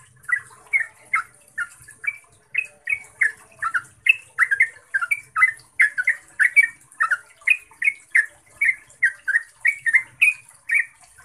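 Yellow-vented bulbul singing a long unbroken run of short, clear, sharply pitched notes, about three a second.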